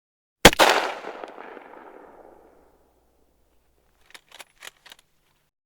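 A single loud gunshot about half a second in, dying away in a long echo over about two seconds, then a few faint clicks near the end.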